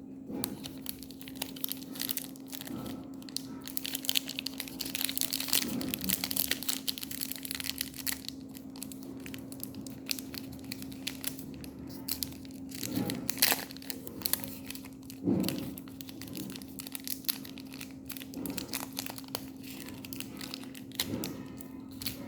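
Crinkly chocolate bar wrappers being crumpled and torn open, with dense crackling that comes in bursts and a few duller handling thuds. A steady low hum runs underneath.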